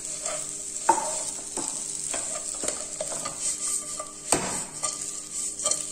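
A spatula stirring and knocking against a non-stick frying pan while mashed cassava fries with a steady sizzle. The knocks are irregular, with the loudest one a little past the middle.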